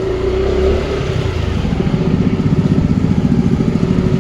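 Hero Splendor single-cylinder motorcycle engine running through an aftermarket SC Project-style exhaust, with a steady tone over it; about two seconds in, a rapid, even exhaust pulse sets in and carries on.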